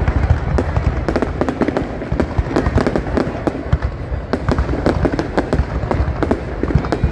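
Fireworks display going off continuously: dense, overlapping booms with rapid crackling between them.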